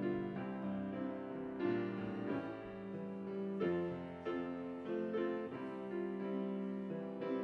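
Piano playing slow, sustained chords, with the harmony changing every couple of seconds.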